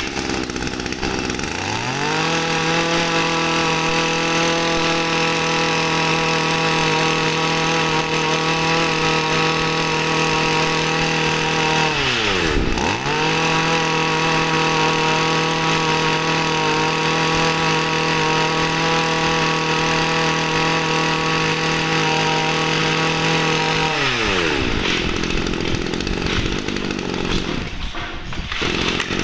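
Shindaiwa 2201 22cc two-stroke brush-cutter engine starting up and revving up to a steady high speed within about two seconds. Its speed dips sharply once about halfway through and picks straight back up. Near the end the pitch falls as the engine slows down.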